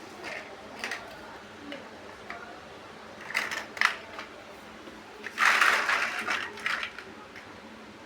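Plastic building bricks being handled and pressed together: scattered short clicks and rattles, with a denser clatter of pieces for under a second a little past halfway.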